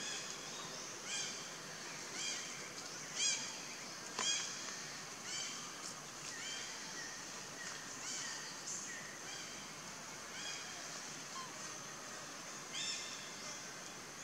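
A string of short, high-pitched animal calls, one about every second, over steady outdoor background hiss.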